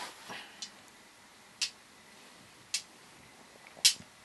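A hand rummaging briefly in a bag of glass marbles, then three sharp clicks of marbles knocking together, about a second apart, the last the loudest.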